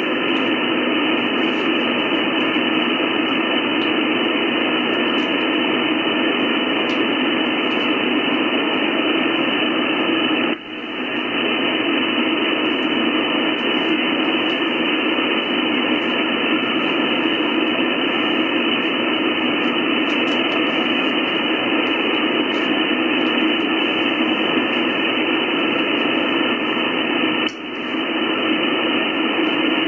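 Steady hiss from a CB radio's speaker: receiver noise on the channel, with no voice on it. The hiss dips briefly twice, about ten seconds in and again near the end, as the signal drops and comes back.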